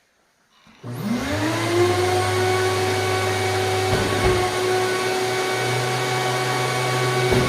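Mirka Leros drywall sander switched on about a second in, its motor rising in pitch up to speed and then running steadily with the rushing hiss of its dust extraction.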